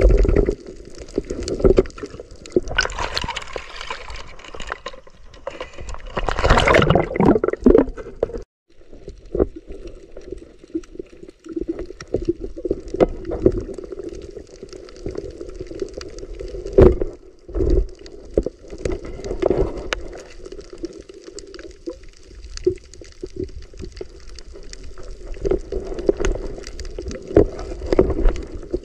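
Muffled water sounds heard through an underwater camera, with knocks and gurgling as the diver moves, and louder rushes of water about three and six seconds in.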